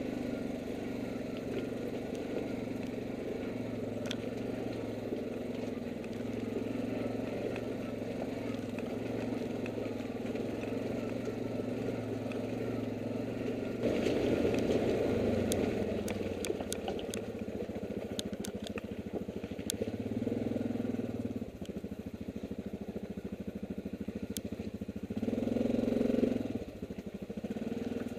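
ATV engine running steadily at low speed on a rocky downhill trail. The engine note picks up about halfway through and swells again briefly near the end. Sharp clicks and knocks come from the machine jolting over the rocks.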